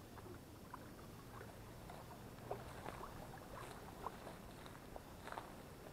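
Faint splashing and sloshing of shallow river water, made up of small scattered ticks and drips.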